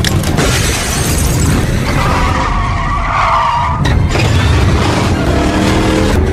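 Car-chase film sound effects: a car engine running hard and tyres skidding, with a long squeal from about two seconds in and a sharp hit just before four seconds.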